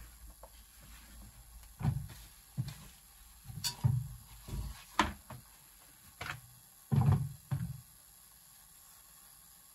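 Wet nappies being lifted out of a spin dryer and loaded into a washing machine: a scattered series of dull thumps with a couple of sharper clicks, over the first eight seconds.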